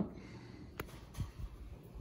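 Faint handling noise: a sharp click a little under a second in, then a few soft, low thumps.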